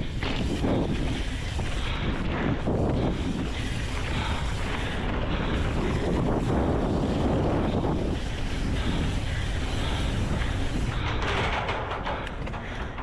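Wind rushing over the microphone with the tyre and riding noise of a mountain bike descending a dirt flow trail at speed, with a few short knocks of clatter near the end.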